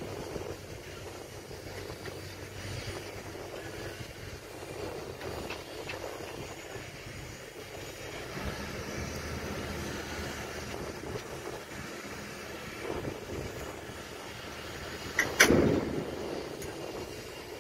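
Shipyard machinery noise with a diesel engine running at a steady pitch. About fifteen seconds in there is one sharp, loud bang followed by a brief rushing noise.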